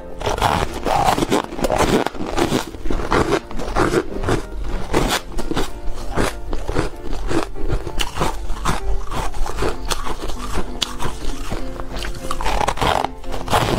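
Frost-coated ice balls being bitten and chewed close to a clip-on microphone: rapid, irregular crunching. Background music plays underneath.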